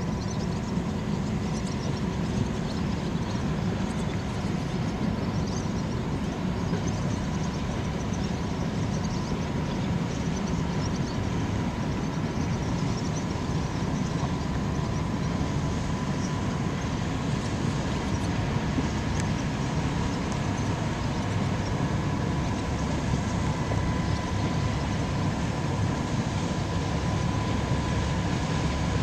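Steady low rumble of a passing steam-turbine Great Lakes freighter, the Herbert C. Jackson, its machinery and propeller churning as the stern comes abeam. A faint steady whine runs through the rumble.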